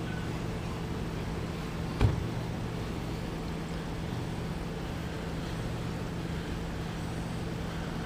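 Steady low hum of an idling vehicle engine, with one sharp knock about two seconds in.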